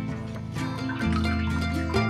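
Instrumental background music with held notes and a bass that changes note about once a second.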